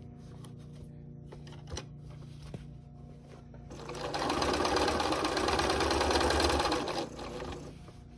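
Computerized sewing machine stitching a binding strip onto a quilt. It starts about four seconds in, runs fast at an even rapid needle rhythm for about three seconds, then stops sharply. A few light clicks come before it.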